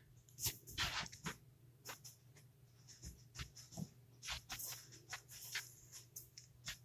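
Faint, irregular ticks and scrapes from a sculpting tool and fingertips working soft polymer clay on a pendant in a metal bezel, a dozen or so short scratchy contacts spread unevenly.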